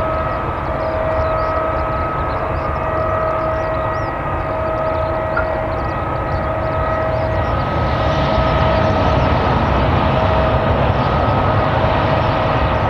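Airbus A320-200 jet engines running at taxi power: a steady rushing noise with a high, steady two-tone whine. About eight seconds in it grows louder and hissier as the aircraft turns.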